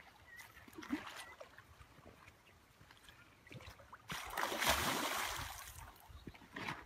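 Hooked king salmon splashing at the water's surface as it fights the line, a loud splash lasting about two seconds a little past the middle, with a smaller stir of water earlier.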